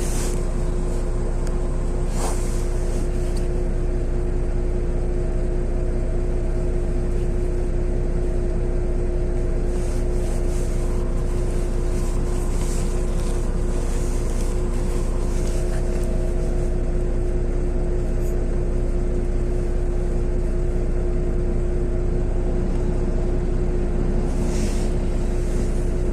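Cabin of a LiAZ 6213.22-01 articulated diesel city bus under way: a steady engine and road rumble with a constant hum. Scattered short rattles and clicks from the body are heard through it.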